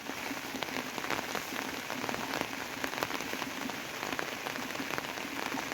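Rain falling on a surface: a dense, steady patter of many separate drop impacts.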